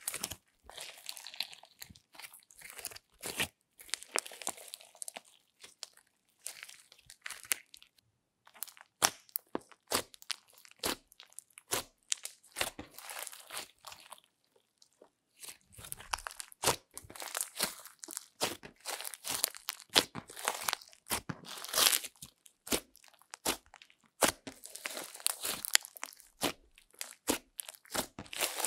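Hands kneading, pressing and poking glittery slime: sticky squelches and rapid runs of crackling pops and clicks as air pockets in the slime burst, with two short pauses.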